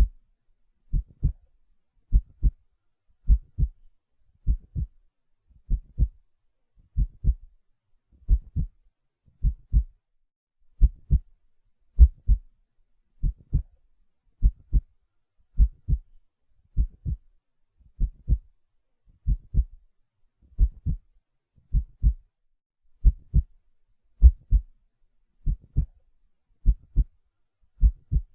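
Heartbeat played as a soothing sound: a slow, steady lub-dub, each beat a pair of low thumps, about one beat every 1.2 seconds.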